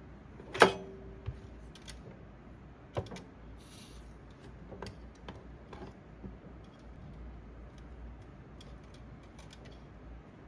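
Tools and small parts handled on a workbench: a few sharp clicks and knocks, the loudest about half a second in with a brief ring after it, another around three seconds in, and a short hiss near four seconds, then faint scattered ticks.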